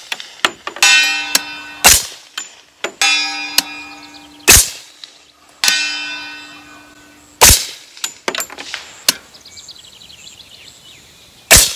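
Four shots from a suppressed CMMG Banshee .45 ACP carbine, a few seconds apart, each answered about a second later by the ringing clang of a distant steel target being hit. A similar ring about a second in comes from a shot fired just before.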